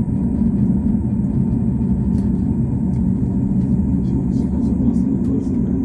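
Steady low rumble of a running vehicle, with a few faint clicks in the second half.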